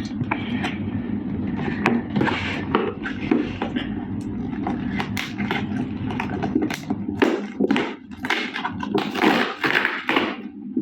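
Hands working at a FailFix doll's cardboard and plastic packaging: irregular scraping, rustling, tapping and knocks, with a steady low hum behind.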